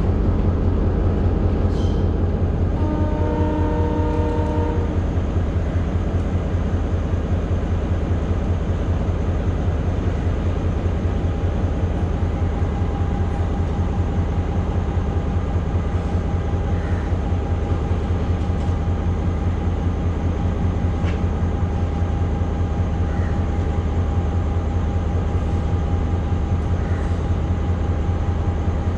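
Diesel train engine running steadily at the platform, a loud low rumble with a fast even beat. About three seconds in, a chord of several held tones sounds for about two seconds, and from about eleven seconds a steady thin whine rides over the rumble.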